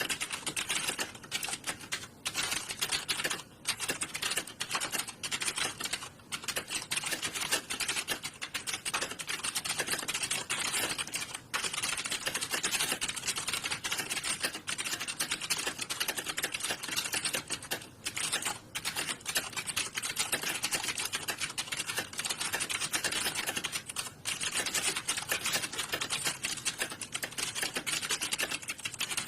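Many computer keyboards being typed on at once in a room, a dense, continuous clatter of overlapping keystrokes with a few brief lulls.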